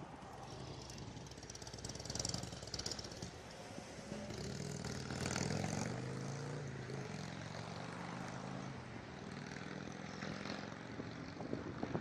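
A motor engine droning steadily, building about four seconds in and holding, with faint high bird chirps over it.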